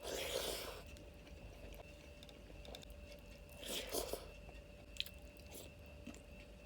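Close-miked eating sounds: a person biting and chewing food, with two short crunchy bursts, one at the start and one about four seconds in, and a sharp click about a second after the second.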